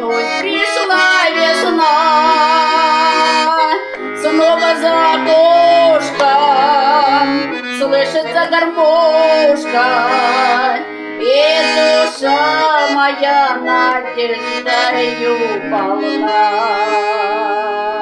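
A woman singing with vibrato over accordion accompaniment, in phrases a few seconds long.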